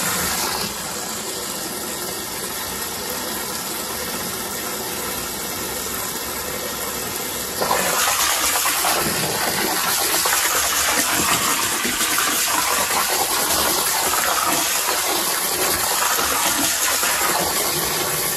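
Garden hose nozzle spraying hard into a plastic tote of salt water, splashing and churning it to mix the salt in. It is a steady rush that gets louder about eight seconds in.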